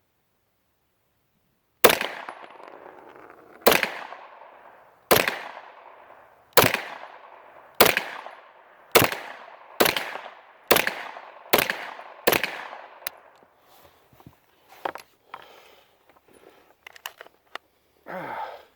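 Carbine firing ten semi-automatic shots, each a sharp crack with a short echoing tail. The shots come about one and a half seconds apart at first and speed up to under a second apart. All ten rounds go off, followed by a few faint clicks and clinks.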